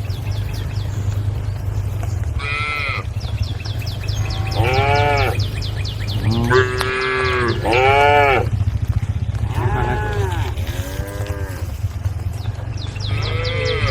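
Cattle mooing again and again: about seven short calls, each rising and then falling in pitch, some overlapping, over a steady low hum.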